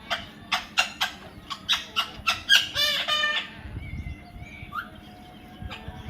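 Parrot squawking: a quick series of about nine loud, harsh calls, ending in a longer call, then fainter short chirps for the rest.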